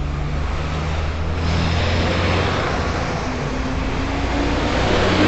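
Close street traffic: a double-decker bus drives past with a rising rush of engine and tyre noise over a steady low hum, and another engine comes up toward the end.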